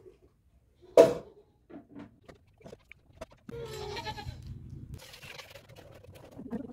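A goat bleating, one wavering call of about a second and a half past the middle, after a single sharp knock about a second in.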